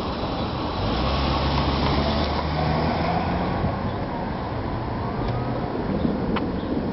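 A motor vehicle's engine running close by over steady street traffic noise, its low hum shifting in pitch between about one and six seconds in.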